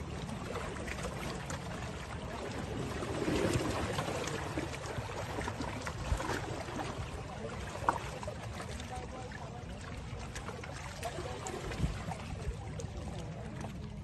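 Small lake waves lapping and splashing gently at the water's edge over a steady low rumble, with a slightly louder wash about three seconds in.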